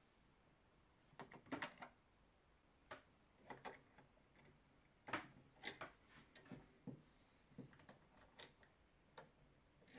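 Faint plastic clicks and taps, a dozen or so spread irregularly, as a 3D-printed tube-removal tool is fitted over a PTFE filament tube and pressed against the push-fit collet on a Bambu Lab AMS hub.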